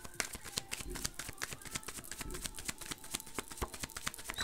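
Tarot cards being shuffled by hand: a quick, uneven run of light card clicks and flicks.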